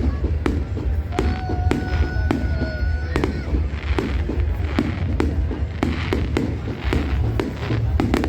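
Fireworks going off in quick succession, with many sharp bangs and crackles over a constant low rumble. A sustained whistling tone sounds for about two seconds starting a second in.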